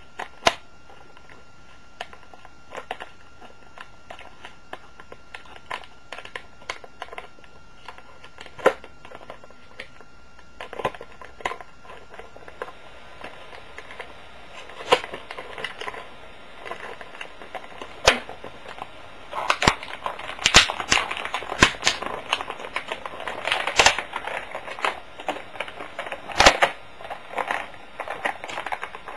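Plastic toy packaging being handled and pulled apart: scattered sharp clicks at first, then denser crinkling and crackling from about halfway, louder over the last third.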